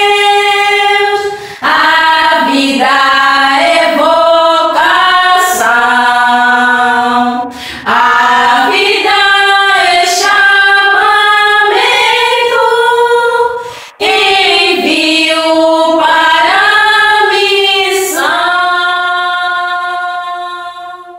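Four women's voices singing an unaccompanied song together in harmony, in long held phrases with brief breaths between them; the song trails off near the end.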